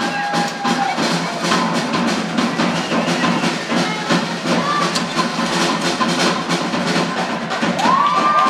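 Tap dancers' shoes clattering in rapid, busy rhythms on a wooden stage, with a drum kit playing along. Audience whoops rise near the end.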